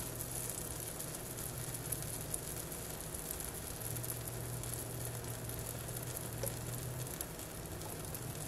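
Dash mini waffle maker sizzling steadily as waffle batter cooks inside it, with a faint low hum underneath.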